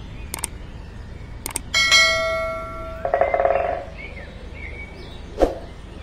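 Subscribe-button animation sound effect: two sharp mouse clicks, then a bright bell ding about two seconds in that fades away, followed by a brief rapid jingling ring. One more knock comes near the end.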